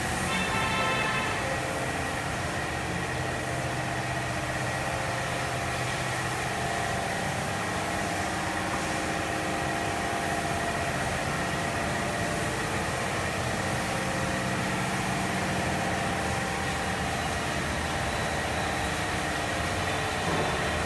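Steady running hum of a motor or engine, like an engine idling, with a short tonal sound about half a second in.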